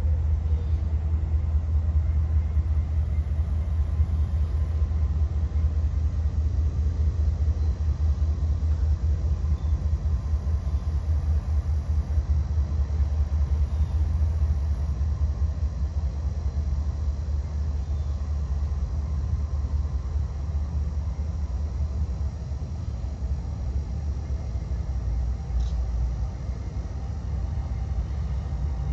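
Steady low rumble of a train passing at a distance.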